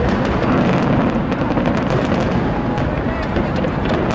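Fireworks display going off continuously: a dense, unbroken mix of deep booms and many rapid sharp cracks from shells bursting close together.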